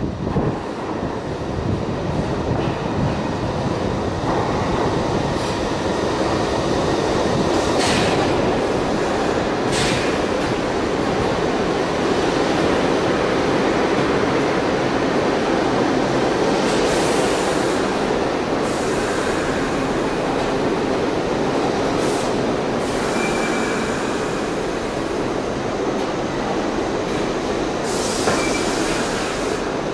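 R62A subway train pulling into the station, a steady loud rumble of steel wheels on rail. Short high squeals break in several times as it slows, a thin tone ringing in two of them.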